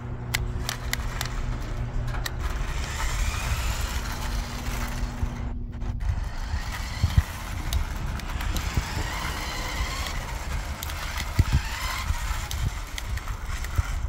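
Adventure Force XT Racer toy RC buggy driving on asphalt: its small electric motor whines, rising and falling in pitch as it speeds up and slows, over the rolling noise of its plastic wheels on the rough surface, with scattered clicks. A steady low hum underneath stops about six seconds in.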